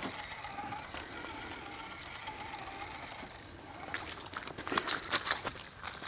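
Axial Deadbolt 1/10-scale electric RC rock crawler's motor and gears whining faintly and wavering as it crawls over snowy ground. From about four seconds in, a run of sharp crackles and crunches of leaves and twigs being stepped or driven over.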